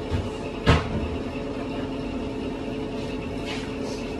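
Steady motor hum with a constant tone. A sharp knock comes under a second in, with a softer thump just before it.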